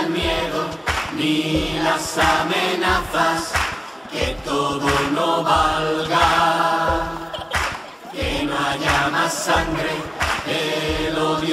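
Music: a choir of voices singing over instrumental backing with a steady beat, the closing part of a singer-songwriter ballad.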